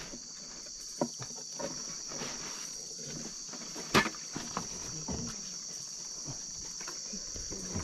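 Insect chorus of crickets or katydids, a steady high-pitched shrill, with scattered small knocks and clicks, the loudest about four seconds in.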